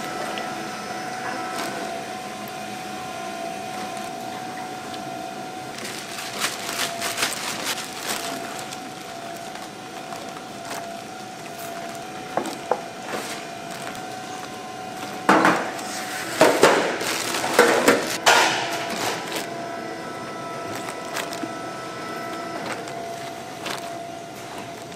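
Steady hum of factory machinery with a few constant tones. Over it come bursts of crinkling and rustling as seasoned napa cabbage is handled and packed into plastic-lined tubs, loudest in a cluster about two-thirds of the way through.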